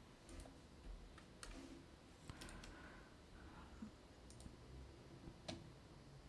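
Near silence broken by a few faint, scattered computer mouse clicks.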